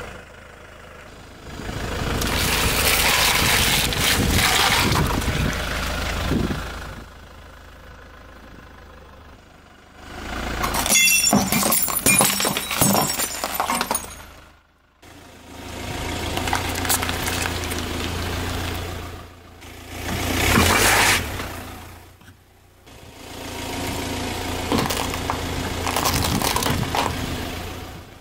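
A car tyre slowly rolls over and crushes a series of objects. A cup of dry instant noodles crunches under it, then a brittle ceramic container full of candy-coated chocolates cracks and shatters with a crackle of sharp snaps. A car engine idles between the crushes.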